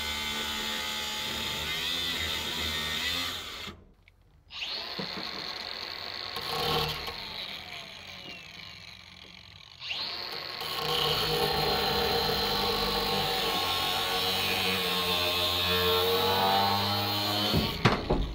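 Cordless angle grinder with a cut-off wheel cutting through the steel of an old truck's steering column and cab. It stops briefly about four seconds in and runs lighter for a while. It starts up again about ten seconds in and cuts steadily under load until it stops near the end.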